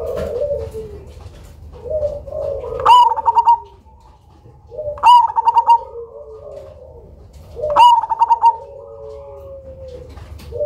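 Black cemani zebra dove (perkutut) singing three loud phrases a couple of seconds apart, each a quick rising note followed by a rapid run of clipped coos. Softer, lower cooing from other doves fills the gaps.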